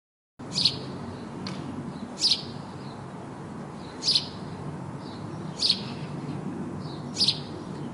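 A bird calling: five short, sharp, high chirps about a second and a half apart, with one fainter chirp between the first two, over a steady low background rumble.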